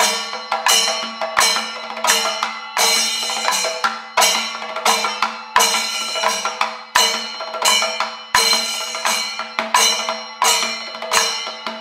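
Panchavadyam temple percussion ensemble (timila, maddalam and idakka drums with ilathalam cymbals) playing the 28-aksharakalam rhythm: an even beat of about three strokes every two seconds, each stroke ringing on.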